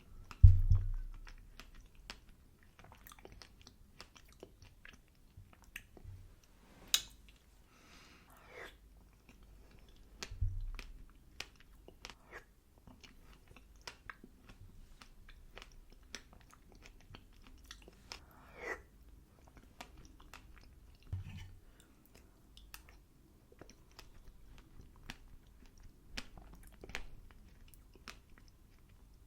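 A person chewing apple and berry crumble close to the microphone, with many small wet mouth clicks. Several low thumps stand out, the loudest just after the start.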